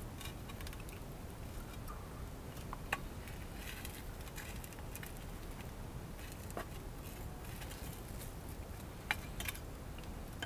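Knife and fork cutting cooked meat in a cast iron skillet: soft scraping and squishing with a few sharp clicks of metal on the pan, over a low steady rumble.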